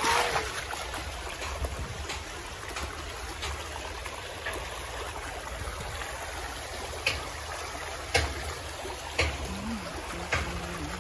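Shallow river flowing over pebbles, a steady rush of water. A few brief sharp knocks cut through it, the loudest right at the start and others spaced out later on.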